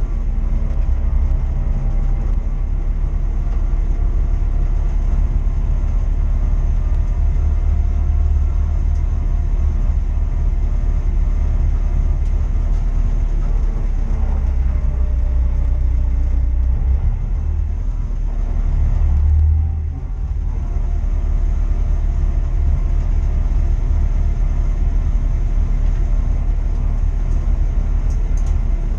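Engine noise with a heavy, continuous low rumble and faint steady engine tones over it, dipping briefly about twenty seconds in.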